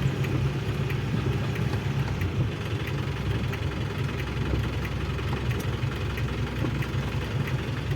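Diesel engine of a Volare A6 micro-bus running steadily at low revs, a low drone heard inside the cabin, which has no sound insulation.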